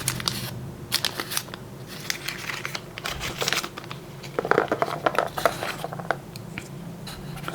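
Plastic packaging being handled: irregular rustling and small clicks and crinkles as ear-tip sets are taken out and sorted.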